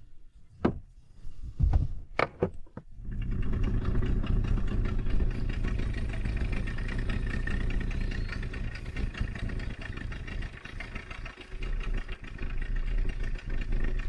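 A few short knocks, then an engine starts running about three seconds in and keeps running steadily.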